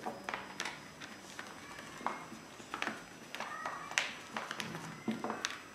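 Scattered taps and clicks of pencils and workbook pages handled on a table, with a few brief, faint children's voices.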